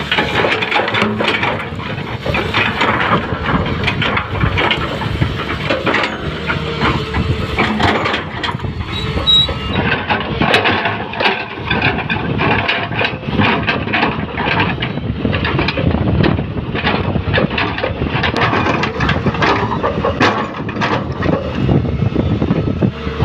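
L&T Komatsu 200 excavator working, its diesel engine running with frequent clanks and rattles throughout.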